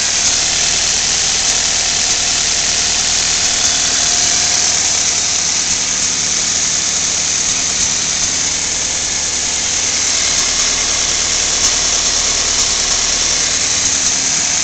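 2000 Toyota Celica GT's 1.8-litre four-cylinder engine idling steadily, with a strong hiss over a low hum. The owner hears puffs of air from the engine and, given oil loss, suspects a bad valve cover gasket or head gasket.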